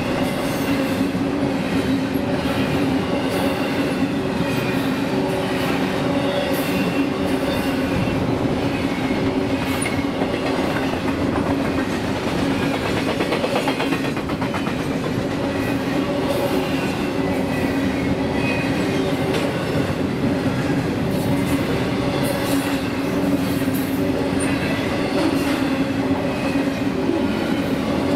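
Double-stack intermodal train's container well cars passing close by, their steel wheels rolling on the rails in a steady, unbroken rumble with a few steady ringing tones above it.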